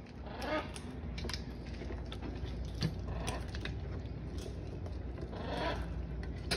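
Blue-and-yellow macaws feeding from a clear plastic tray of banana slices: scattered irregular clicks and taps of their beaks against the plastic, over a steady low rumble.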